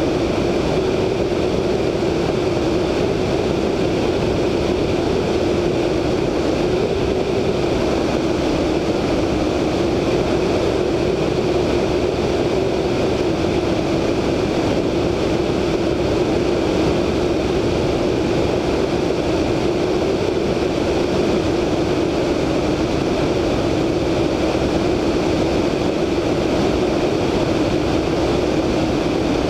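VL Viima II biplane in cruise flight, heard from a wingtip-mounted camera: the steady drone of its Siemens-Halske Sh 14A seven-cylinder radial engine and propeller under the rush of slipstream wind.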